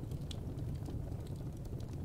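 Firewood burning: irregular small crackles and pops over a steady low hum.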